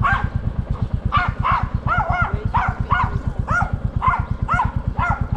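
A dog barking over and over, about two barks a second, over the steady low thumping of a Royal Enfield Classic 350's single-cylinder engine running.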